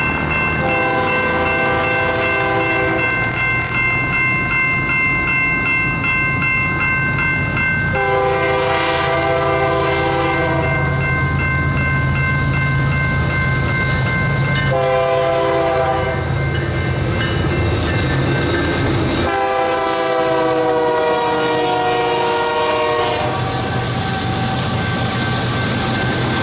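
BNSF diesel locomotive air horn sounding the long-long-short-long grade-crossing signal as the train approaches, over a steadily ringing crossing warning bell and the growing drone of the locomotive engines. Near the end, the empty intermodal well cars clatter past over the crossing.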